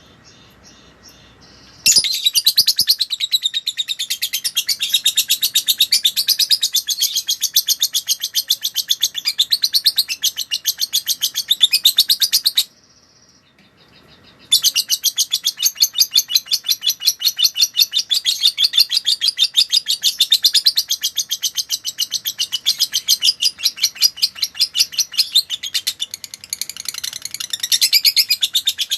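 Lovebird singing a long, rapid chattering run of high, shrill notes. It starts about two seconds in, breaks off suddenly for about two seconds near the middle, then resumes.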